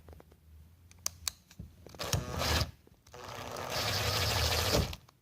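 Cordless screwdriver backing out a Phillips screw on a Miata hardtop's rear latch. There are a few clicks, then a short run about two seconds in, then a steady run of about two seconds that cuts off suddenly near the end.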